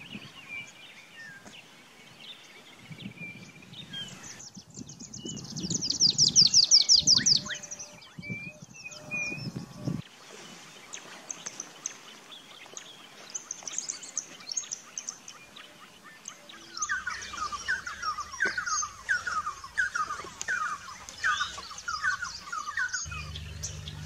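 Wild African birds singing in turn. A loud, high, rapid trill comes first; thinner high trills follow in the middle, sung by a Red-fronted Prinia. Near the end comes a rhythmic run of about a dozen repeated falling notes, which fits the Red-and-yellow Barbet.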